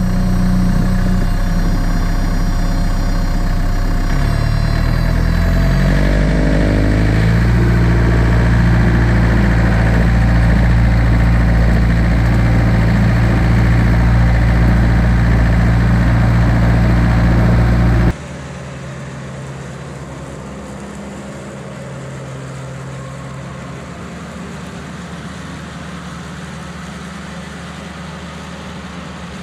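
John Deere 110 tractor-loader-backhoe's diesel engine running with a belt-driven three-blade finish mower: its pitch rises over a few seconds about five seconds in, then holds steady and loud. About eighteen seconds in the sound abruptly becomes much quieter and stays a steady engine drone.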